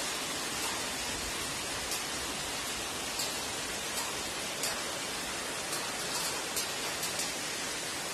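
Steady heavy rain falling on a paved road and bare ground, an even hiss with scattered sharp ticks of individual drops striking close by.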